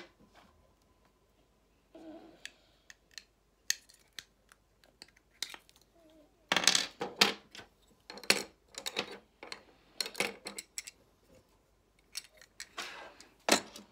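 Small hard plastic Playmobil parts clicking and clattering as they are handled, shuffled and snapped together, with scattered single clicks early on and denser bursts of rattling from about halfway through.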